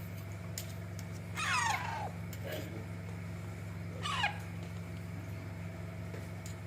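Pet parrot giving two sharp calls that fall steeply in pitch, about two and a half seconds apart, over a steady low hum.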